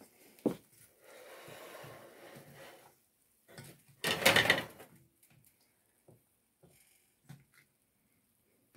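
A spoon stirring thick batter in a stainless steel mixing bowl: soft stirring sounds and scattered clinks of metal on metal, with one louder, brief clatter about four seconds in.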